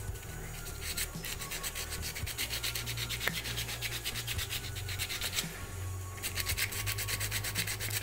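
Sandpaper scouring the rotor of a table fan motor in quick back-and-forth strokes, rubbing off the carbon that has built up on it. The strokes stop briefly a little past halfway, then start again.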